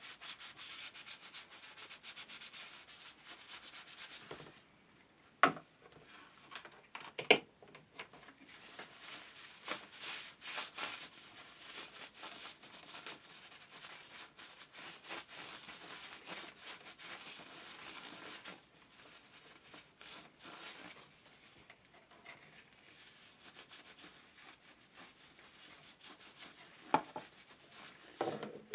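Fan parts being rubbed and scrubbed clean by hand, a steady scraping-rubbing that eases off about two-thirds of the way through, with a few sharp knocks of parts being handled, two near the start and two near the end.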